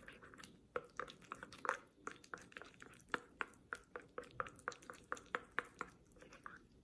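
Wooden stick stirring and mashing a sticky paste of water-soaked rice paper in a small ceramic bowl, making a quick run of soft wet clicks, about four a second. The paste is being worked into an edible glue and is nearly ready.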